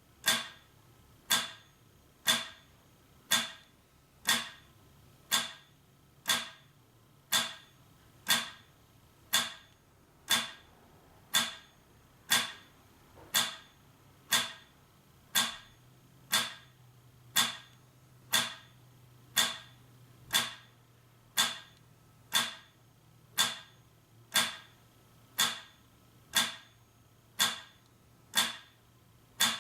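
Metronome ticking at tempo 60: one sharp, even click every second.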